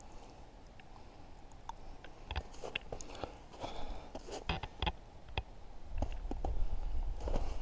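Footsteps crunching through packed snow: quiet at first, then irregular crunches from about two seconds in, growing louder toward the end.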